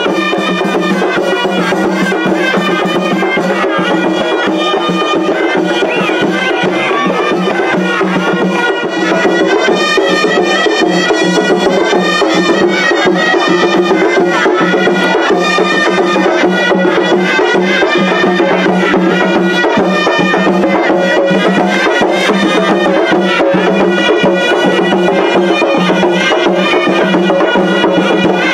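Traditional Moroccan procession music, loud and continuous: reed pipes play a melody over a steady drone, driven by drums and percussion. It gets a little louder about a third of the way in.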